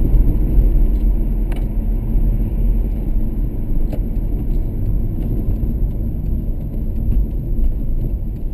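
Steady low rumble of a car's engine and tyres heard from inside the cabin while driving, with a couple of faint clicks. It eases slightly near the end as the car slows.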